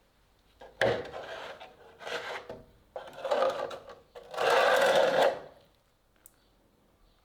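Four hand-rubbing strokes of an abrasive working the rusty cleaver, each under a second, the last the longest and loudest.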